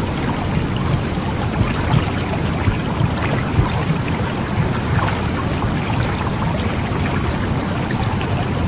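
Womb sound for calming a baby: a steady, deep whooshing rumble, like blood flow heard from inside the uterus, with soft uneven pulses.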